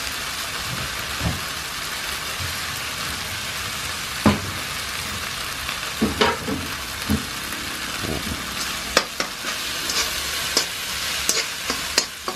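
Egg fried rice frying in a wok with a steady sizzle, a whole egg just added. A spatula scrapes and clacks against the wok, more often in the second half.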